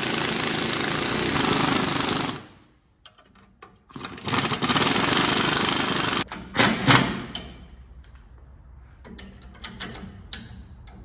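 Pneumatic impact wrench hammering on a leaf-spring shackle bolt, in two bursts of about two seconds each. Sharp metal clanks follow, then light clicking as the bolt is snugged with a hand ratchet near the end.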